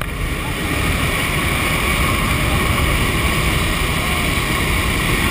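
Steady rush of wind and aircraft engine noise at the open door of a skydiving plane in flight, buffeting the camera microphone.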